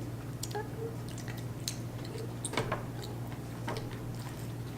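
Faint, scattered wet clicks and smacks of mouth-open chewing while eating, over a steady low hum.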